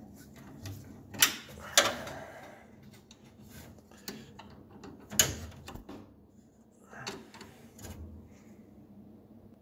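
Screwdriver working a hose clamp on an oil cooler hose: sharp metallic clicks and knocks. Loud ones come about a second in, again just under two seconds in and about five seconds in, with lighter ticks between.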